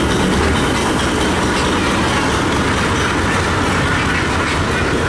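Barge engine running steadily at close range, a loud, constant rumble with a dense churning noise over it.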